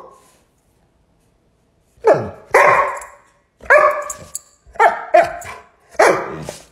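A dog barking and howling back in a string of short calls starting about two seconds in, mixed with a man's imitation 'woof' barks.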